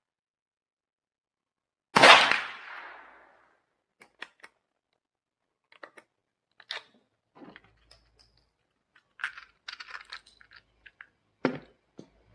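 A single .22LR rifle shot firing a CCI Stinger high-velocity round, about two seconds in, its report fading over about a second and a half. After it come scattered small clicks and knocks.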